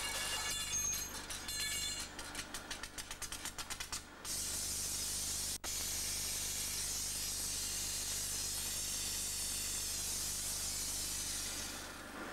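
A rapid run of small clicks, then a glassworking gas torch hissing steadily as its flame heats the rim of a glass jug; the hiss fades near the end.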